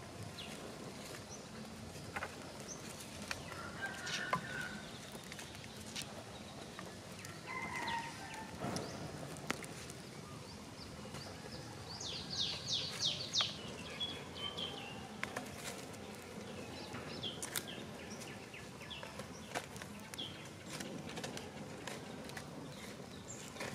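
Chickens clucking and birds calling in the background, with a quick run of high chirps about halfway through. Scattered light clicks and crackles come from a small wood fire being tended with sticks.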